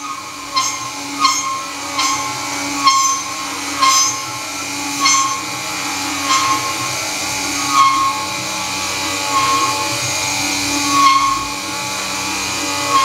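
Milling machine with a three-phase motor and toothed-belt drive, its end mill cutting aluminium: a steady machine whine with a louder bite of the cutter about every second or so, the bites coming further apart toward the end.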